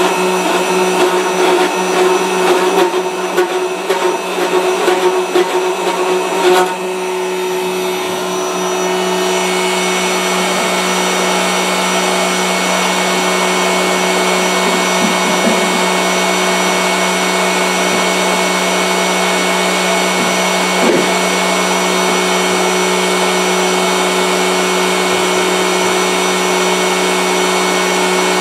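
Router motor on a multi-spindle gunstock duplicator running at speed, a continuous whine. It sounds rougher and more uneven for the first six or seven seconds, then settles into a steady, even whine.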